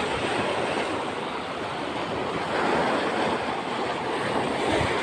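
Sea waves washing and breaking over rocks, a steady rush of surf that swells louder about halfway through and again near the end.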